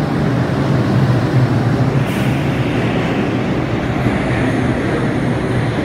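R142-series subway train standing at the platform with its doors open, its on-board equipment running with a steady loud hum and rumble. There is a brief hiss about two seconds in.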